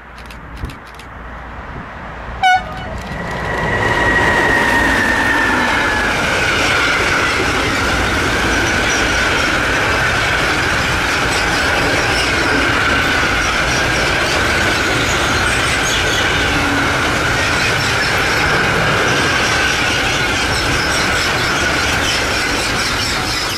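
A train passing close at speed: loud steady rumble and clatter of wheels on rail, with a high whine that drops in pitch as the train goes by and then holds. A brief sharp noise comes just before it arrives.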